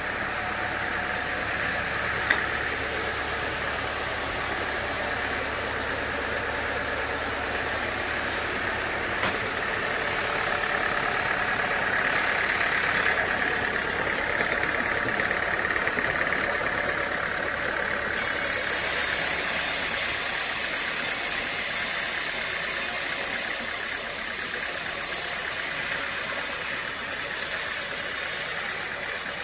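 Sawmill machinery running steadily with an engine-like drone. About two-thirds of the way through, a high hiss sets in suddenly and stays.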